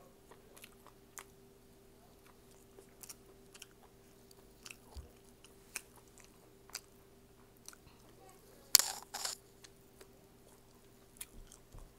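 Close-up chewing of kimchi and crispy fried food: soft wet mouth clicks and small crunches at irregular intervals, with one louder, sharper crunching burst about nine seconds in.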